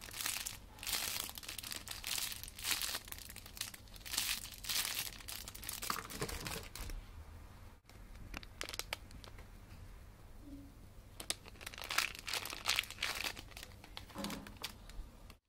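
Clear plastic packaging crinkling and crackling in irregular bursts as squishy toys inside it are squeezed and handled. There is a quieter lull in the middle before the crinkling starts again.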